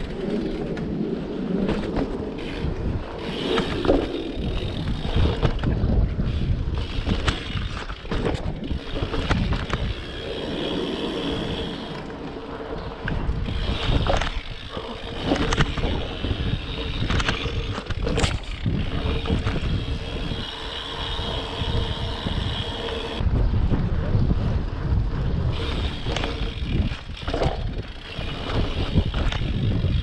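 Wind buffeting the microphone over BMX tyres rolling and scraping on hard ground, with several sharp knocks from the bike landing or hitting the riding surface.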